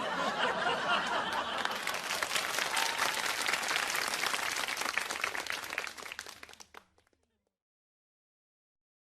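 Crowd applauding: a dense patter of many hands clapping that thins out and stops about seven seconds in.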